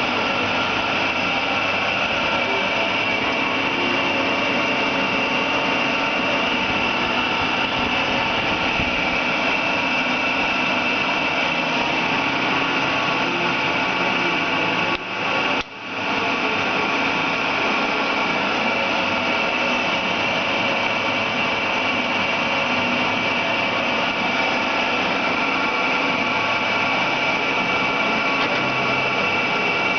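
Challenger lathe running steadily under power, with a steady high whine over a dense machine hum. The sound drops out briefly about halfway through.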